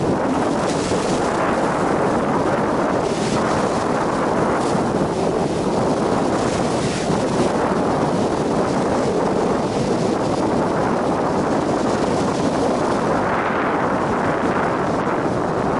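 Rough sea surging and breaking against rocks, mixed with strong wind buffeting the microphone. The rush is continuous and swells and eases several times.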